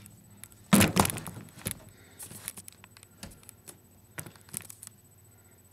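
Knocks and rattling of a broken plastic TV remote being handled. The loudest clatter comes about a second in, followed by lighter scattered clicks that stop shortly before the end.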